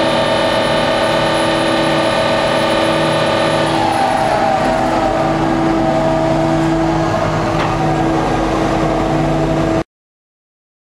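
Piling rig's diesel engine and hydraulic power pack running steadily, heard from inside the operator's cab, with a steady whine whose pitch shifts about four seconds in. The sound cuts off suddenly near the end.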